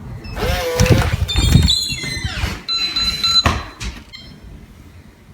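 A door opening with a squeal, then electronic beeps from a home security alarm panel: one long beep and a quick run of short ones near the end.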